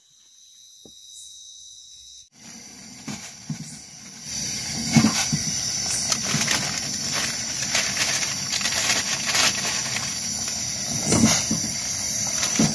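Steady hissing from a portable gas stove heating a pot of instant noodles, over a constant high chorus of night insects, with a few low knocks from the pot.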